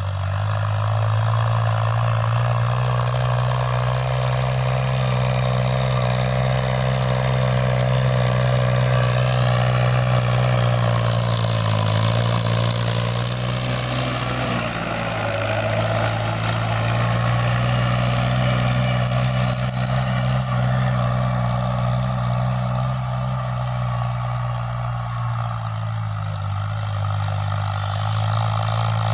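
Diesel tractor engine running steadily under load while ploughing, its note shifting briefly about halfway through.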